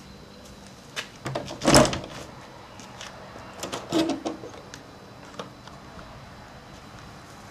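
Knocks and clacks on a wooden stable half-door as it is handled: a few light ones, the loudest thud about two seconds in, a cluster near four seconds and a single one near the end.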